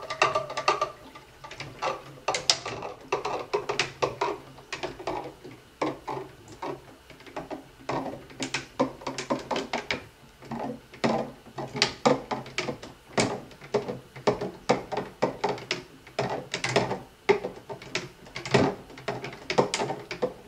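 Long stirring rod clicking and knocking against the neck of a 5-gallon glass carboy while stirring cider, in rapid, uneven strokes. This is the stir that mixes the Sparkolloid fining agent and potassium metabisulfite through the cider.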